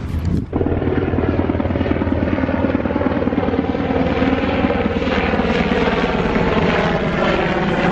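Helicopter flying overhead, its rotor chopping steadily and rapidly; the sound comes in about half a second in.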